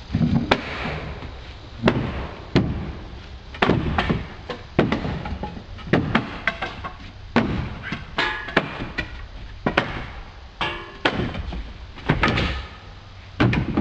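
Wooden deck railing being smashed apart with hand tools: more than a dozen heavy, irregular blows on wood from two people striking at once, some landing close together.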